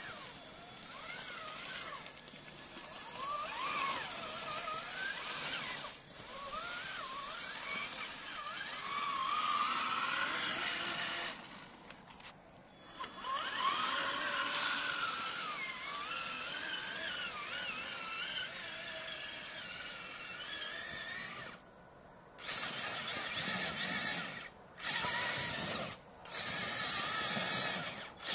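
Traxxas Summit 1/10 RC truck's electric motor and drivetrain whining, the pitch rising and falling with the throttle as it drives. In the last few seconds the whine comes in several short, louder throttle bursts.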